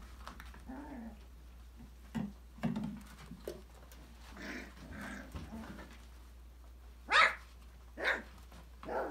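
Five-week-old Australian labradoodle puppies playing: soft growls and whines, then three short, sharp barks near the end, the first the loudest.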